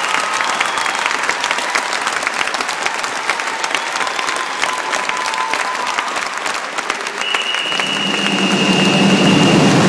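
Audience applauding: dense clapping. Near the end a steady high tone and a low rumble come in and grow louder.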